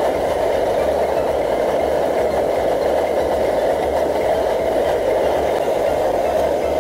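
MSR DragonFly liquid-fuel (gasoline) stove burning at full flame under a pot, a loud, steady rushing roar with a low, uneven rumble beneath.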